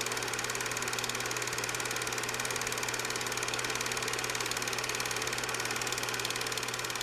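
A steady mechanical running noise: a low hum under a fast, even clatter that does not change.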